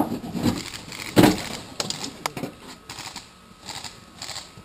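Incoming airsoft BB fire: scattered sharp clicks and knocks around the player's log cover, with rustling of leaves and gear as he crouches. The loudest knocks come at the very start and about a second in.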